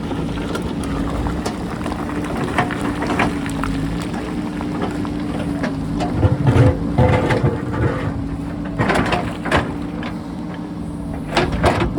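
JCB backhoe loader's diesel engine running steadily, with repeated knocks and scrapes of rock against the bucket, heaviest about halfway through.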